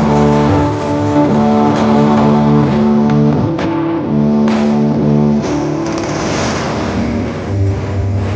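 Loud music blasting from a 'sound horeg' carnival sound system, a huge truck-mounted stack of speakers and subwoofers: a melody of sustained notes changing every half second or so, with a deep bass note coming in near the end.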